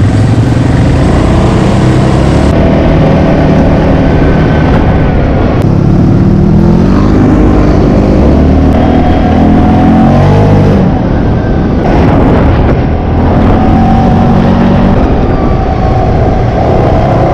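Quad ATV engine running while riding, its pitch rising and falling with the throttle, over a steady rush of tyre and wind noise on a gravel trail.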